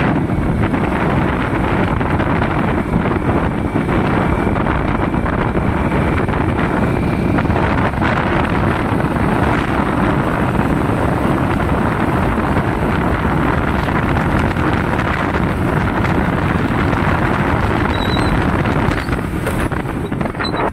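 Wind rushing over the microphone of a moving Hero motorcycle, with the bike's engine running under it; the noise eases a little near the end.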